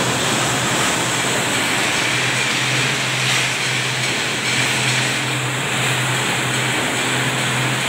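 Vibratory finishing machine running steadily while polishing bearing rollers: a constant low hum under a dense, even hiss of parts and media churning in the bowl.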